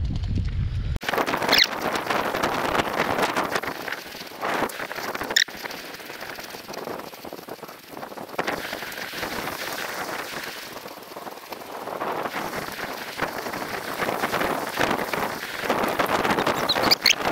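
Uneven rustling outdoor noise with wind on the microphone, broken by a sharp click about five seconds in and a couple more near the end.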